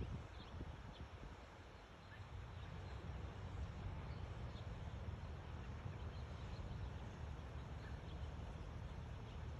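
Quiet outdoor ambience: a steady low rumble with a few faint, short bird chirps scattered through it.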